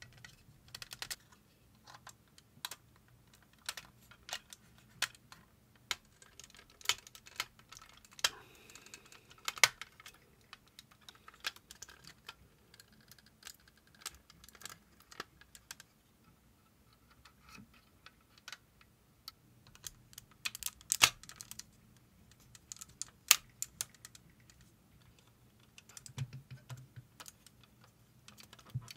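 Parts of a Metal Composite Zeta Plus action figure clicking and clacking irregularly as they are handled and snapped together, with a few louder snaps about ten, twenty-one and twenty-three seconds in.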